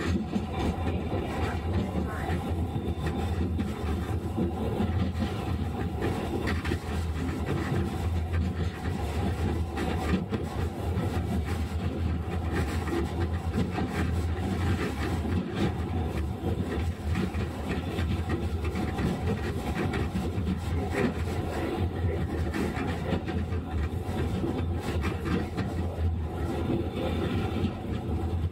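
Running sound heard from inside a Sapporo streetcar, M100-class car M101: a steady, even rumble of the tram's wheels and running gear in motion along the street track, with no stop or start.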